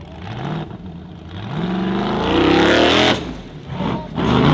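Off-road competition buggy's engine revving hard: a rising pitch from about one and a half seconds in climbs to a loud peak and cuts off sharply, then another short loud burst comes near the end.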